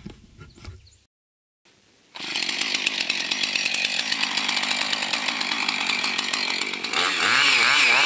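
Gasoline chainsaw running steadily from about two seconds in, then revving up and down near the end as it starts cutting into a fallen branch.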